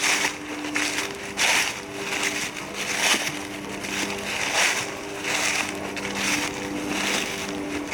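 Footsteps crunching through dry leaf litter, about one step every 0.8 s, over the steady drone of a helicopter overhead.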